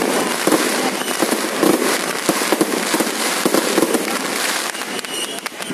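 Fireworks display: aerial bursts and crackling stars going off in a dense, continuous barrage of bangs and crackles, easing slightly near the end.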